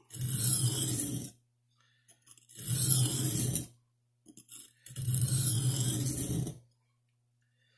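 A Buck 119 knife blade scraping across a Norton oil stone in three long sharpening strokes, each about a second, with short pauses between them. The strokes are raising a burr on the second side of the edge.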